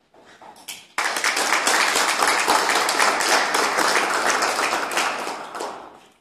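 Small audience applauding, starting suddenly about a second in and dying away near the end.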